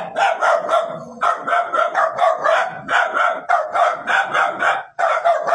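A dog barking in rapid, steady runs of about four barks a second, with a few brief breaks.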